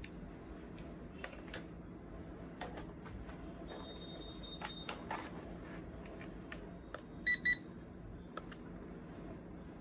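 Two quick electronic beeps about seven seconds in, the loudest sounds here, among light clicks and taps of handling, over a faint steady hum.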